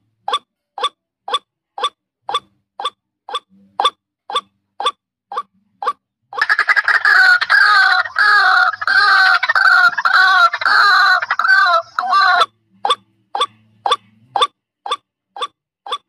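Recorded calls of a female white-breasted waterhen (ruak-ruak), used as a bird-trapping lure. Short loud notes repeat at about two a second. From about six seconds in to near the end, a dense run of rapid, wavering calls takes over, then the short repeated notes return.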